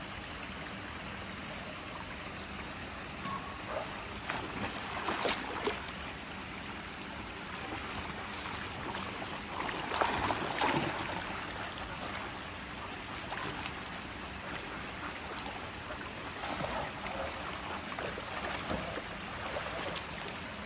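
Steady trickling of swimming-pool water, with irregular bursts of splashing a few times, loudest about ten seconds in, as a Labrador puppy goes into the water and paddles.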